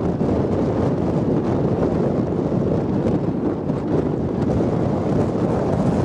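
Wind buffeting the microphone: a steady, gusting rush of noise, strongest in the low end.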